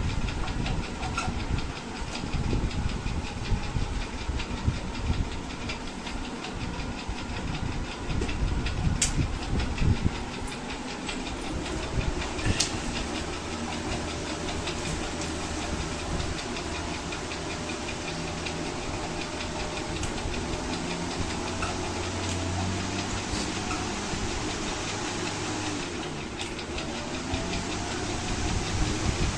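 Electric table fan running: a steady hum with the noise of moving air, and irregular low rumbling in the first few seconds.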